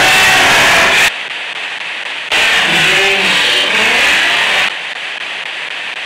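Spirit box sweeping through radio stations: loud bursts of hissing static with garbled snatches of voice, one about a second long at the start and a longer one from about two to nearly five seconds in, with quieter hiss between.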